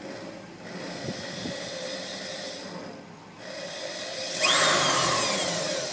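Corded electric drill boring a hole up through a 1969 Mustang's sheet-metal hood. It runs steadily for about two seconds, pauses briefly, then comes back louder and harsher as the bit cuts into the metal.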